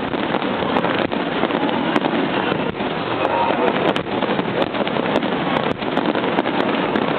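Star mine fireworks barrage firing continuously: a dense, unbroken wash of overlapping bangs and crackle.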